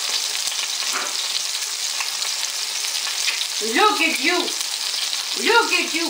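Chuck roast searing in hot oil in an enameled Dutch oven, a steady sizzle as the meat browns. Two short vocal sounds break in, about four and five and a half seconds in.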